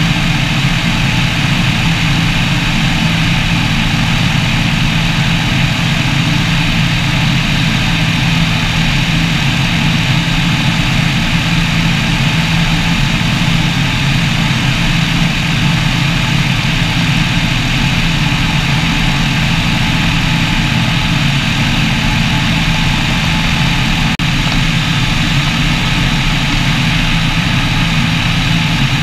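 Microlight trike's rear-mounted engine and pusher propeller running steadily in cruise flight, with air rushing past the wing-mounted camera.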